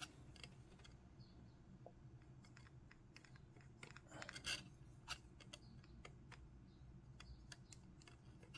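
Near silence with a low steady hum and scattered faint clicks and taps: handling noise of fingers gripping and turning a plastic miniature base, a few slightly louder clicks about four to five seconds in.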